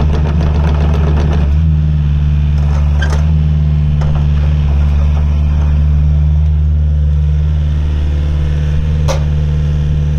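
Komatsu PC80MR-3 midi excavator's diesel engine running steadily while the machine swings its upper structure round, with a few sharp clicks, the loudest about nine seconds in.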